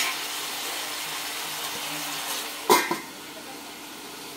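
Brinjal and potato pieces sizzling in oil in a frying pan; a steel lid is set down on the pan with a sharp clank about two and a half seconds in, and the sizzle goes on more softly under the lid.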